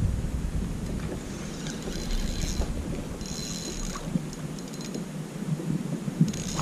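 Wind on the microphone over the open water, low at first and easing after about a second, with a spinning fishing reel being cranked in short spells of a second or so while a fish is played on a bent rod.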